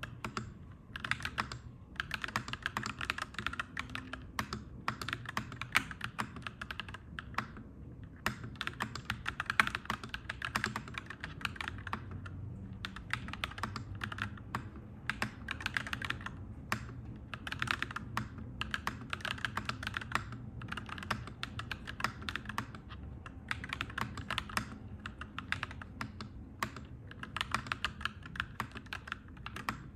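Clacky mechanical keyboard being typed on in quick runs of keystrokes, broken by short pauses every few seconds, over a steady low hum.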